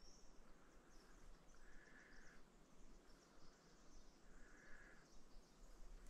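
Two faint Roosevelt elk calls, each under a second long and holding one pitch, about three seconds apart; between them is near silence.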